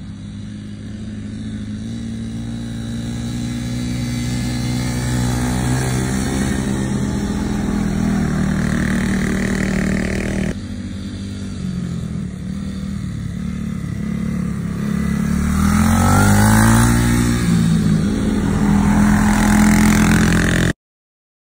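Off-road vehicle engines running and revving, their pitch rising and falling as they speed up and pass. There is an abrupt change about halfway through, and the sound cuts off suddenly near the end.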